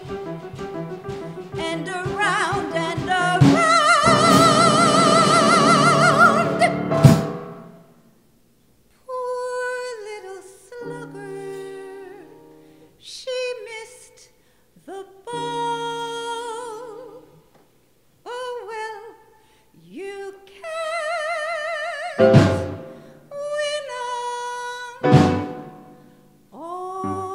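A woman singing a long held note with vibrato over the full accompaniment, which ends together with it about seven seconds in. After that come short sung notes with vibrato, broken by brief pauses and a couple of sharp chords.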